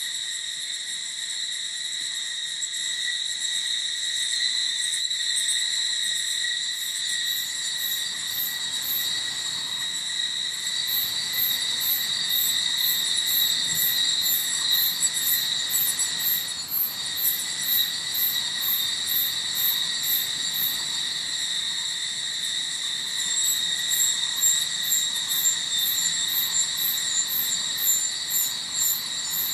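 Forest insect chorus: a steady high buzzing drone, joined by a second insect's very high, evenly pulsed chirps at about three a second that drop out for a while midway and then resume.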